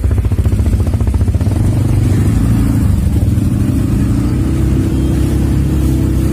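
CFMoto CForce ATV engine running under throttle. It pulses unevenly at first, then steadies and climbs a little higher about two seconds in.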